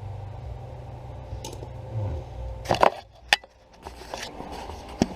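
A few sharp clicks and knocks of parts or tools being handled, over a steady low hum that cuts out a little under three seconds in.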